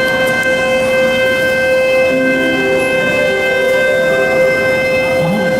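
Subway train standing at the platform with its electrical equipment giving a loud, steady whine at one unchanging pitch, with fainter shifting tones below it.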